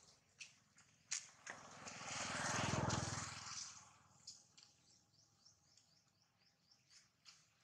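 A motor vehicle swells past and fades, loudest about three seconds in, after a few sharp ticks. A run of quick, repeated high bird chirps follows.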